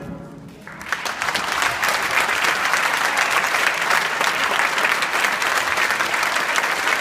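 Audience applauding, starting about a second in as the orchestral music dies away, then holding steady.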